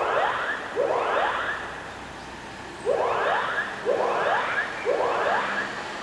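Elementary school's fire alarm sounding: rising whooping tones in sets of three, about a second apart, with a pause of about two seconds between sets.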